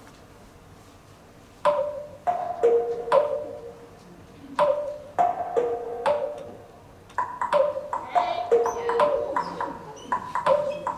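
Music: a slow melody of single struck notes, each with a sharp attack and a short ring, starting after about a second and a half of quiet.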